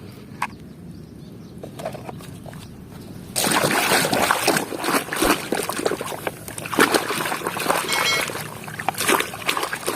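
Water splashing and running over plastic toys as they are washed, a few light clicks at first, then a sudden loud rush of splashing about a third of the way in that goes on to the end.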